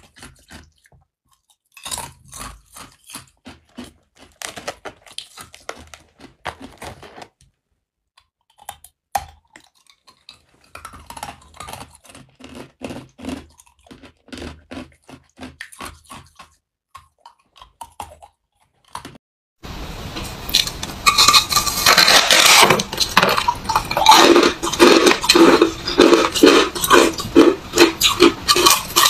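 Hard clear ice cubes bitten and crunched between the teeth in bursts of sharp cracks with short pauses between. About two-thirds through it changes to a louder, denser, rhythmic crunching of freezer frost being chewed, over a steady hiss.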